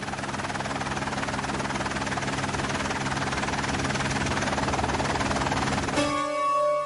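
Helicopter engine and rotor noise: a steady dense drone with a fast flutter. It cuts off about six seconds in, where a held musical note begins.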